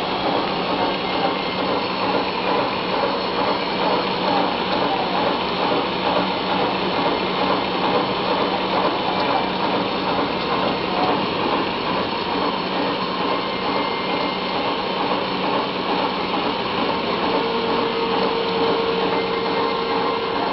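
Thread-milling machine cutting a worm thread on a steel shaft: a steady mechanical whir and hum with the hiss of coolant oil pouring onto the cut. A higher steady hum joins near the end.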